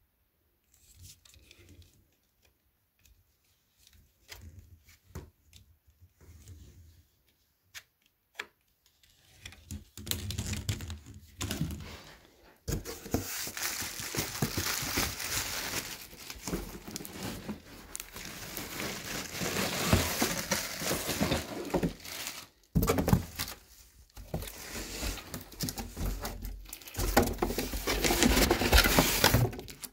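Faint scattered handling clicks, then from about ten seconds in a plastic packaging bag crinkling and cardboard rustling and scraping as hands dig through a shipping box, pausing briefly near the end.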